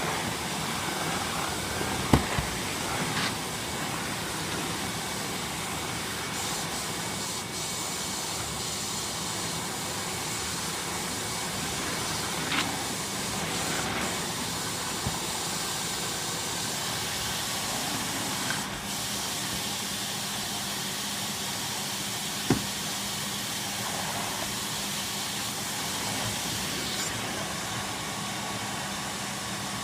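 Numatic NRV200-T commercial vacuum cleaner running steadily with its turbo electric floor tool, a constant hissing suction noise with a steady hum. A few brief knocks come through it, about every ten seconds.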